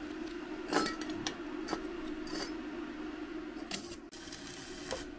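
Steel parts being handled during metalworking: scattered light metallic clinks and a brief rasp about four seconds in, over a steady hum.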